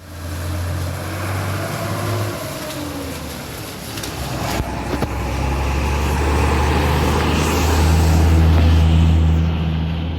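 Blue Bird TC2000 bus with a Mercedes-Benz diesel engine running, a steady low engine note that swells in the second half and eases off near the end. A couple of sharp clicks sound about halfway through.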